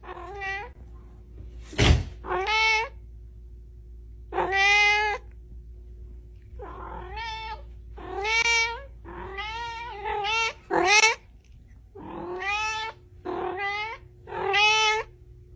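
A domestic cat meowing over and over, about a dozen separate meows of half a second to a second each, with a sharp click about two seconds in.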